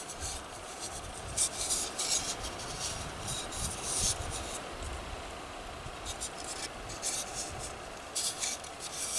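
Rubbing and rustling handling noise in several short bursts as a plastic distributor cap is turned over in the hands close to the microphone, over a low rumble.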